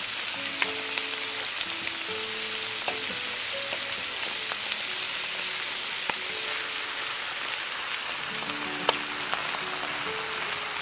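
Cabbage, carrots and pork frying in a pan, a steady sizzle with a few light clicks, the sharpest about nine seconds in. Soft background music with held notes plays over it.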